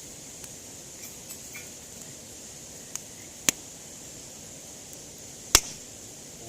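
Campfire wood crackling: a few sharp pops, the two loudest about two seconds apart in the second half, over a steady high hiss. The pops are typical of moisture in the burning wood heating, expanding and bursting.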